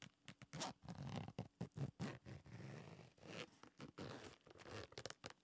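Zipper on a hard-shell microphone case being unzipped, drawn around the case in many short, uneven pulls.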